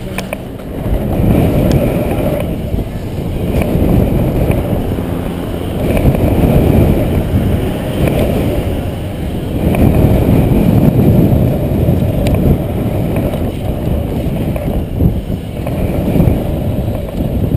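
BMX bike rolling fast down a start ramp and along a dirt track, its tyres rumbling and wind rushing over the camera microphone on the moving rider. The rumble swells and eases several times as the speed changes.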